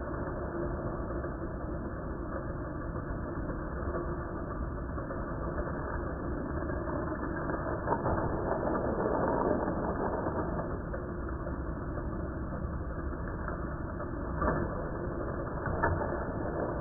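Steady whir of battery-powered Hot Wheels track boosters running, with a few short clicks in the second half as cars run through the track.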